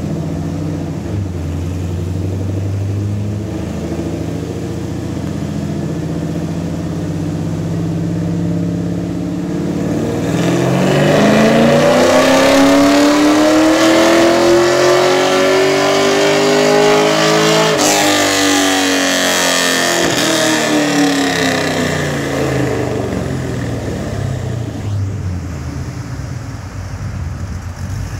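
Camaro's 376-cubic-inch LSX V8 on a chassis dyno, exhaust closed through a MagnaFlow muffler. It runs steadily at low revs, then from about ten seconds in makes a full-throttle pull, its pitch climbing for about eight seconds. The throttle then snaps shut and it winds down back toward idle.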